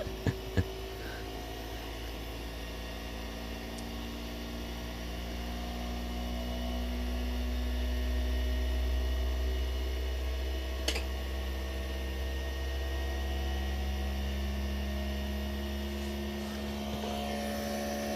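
Creality Ender 3 V3 Plus 3D printer running its startup self-check: a steady machine hum with several held tones from its stepper motors and fans, swelling in the middle. Two clicks near the start and one sharp click about eleven seconds in.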